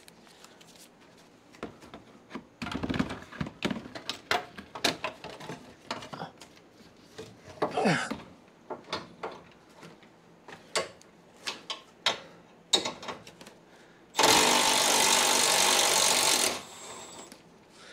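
Scattered clicks and clanks of hand tools working on the bumper bolts, then a power tool run once for about two seconds near the end, the loudest sound.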